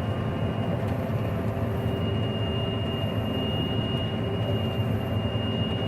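Combine harvester running steadily while harvesting wheat: an even drone of engine and threshing machinery, with a thin high whine held steady.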